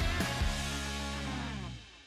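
Background music ending on a held chord that rings and fades out near the end.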